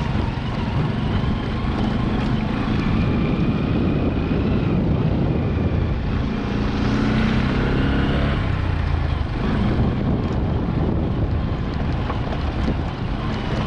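Road traffic: vehicle engines running over steady road noise, with wind buffeting the microphone. An engine grows louder and passes between about six and nine seconds in.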